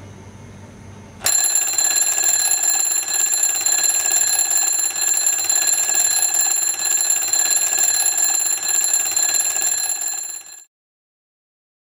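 A loud, continuous alarm ringing that starts about a second in and cuts off suddenly near the end.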